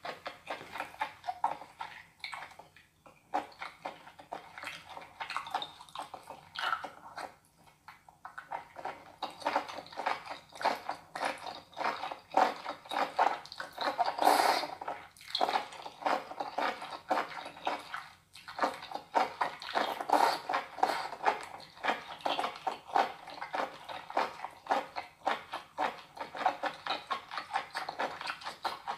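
Close-up eating of raw baby octopus: wet chewing and mouth smacks, many small clicks in quick succession. About halfway through comes a longer slurp as a bundle of tentacles is sucked in.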